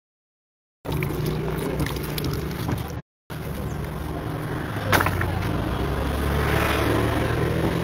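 A motor vehicle engine running steadily, a low even hum under rustling noise, with a single sharp click about five seconds in. The audio drops out completely at the start and again for a moment about three seconds in.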